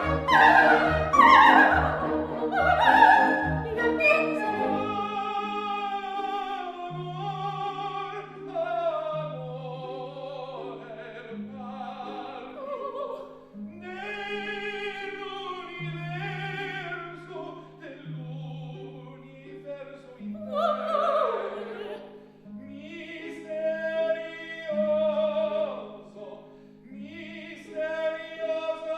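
Background music: a singing voice carries a wavering melody over long held bass notes that alternate between two pitches. The first few seconds are fuller and louder.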